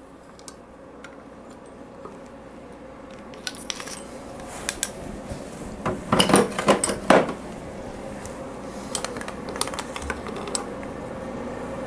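Scattered metallic clinks and rattles as the push rods are drawn out of a Harley-Davidson Evolution V-twin and handled. They come in small clusters, loudest about six to seven seconds in.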